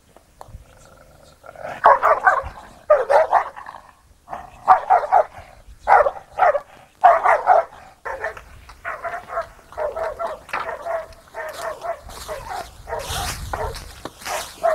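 Dog barking over and over, the barks coming quicker and shorter in the second half. Branches rustle and crackle near the end as the dog pushes through brush.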